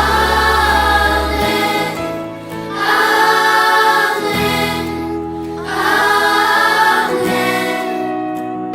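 Worship music: a choir singing a Christian hymn in long held phrases over sustained low accompaniment notes.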